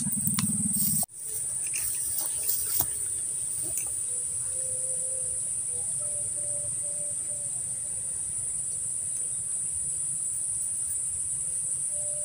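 Steady, high-pitched buzzing chorus of insects.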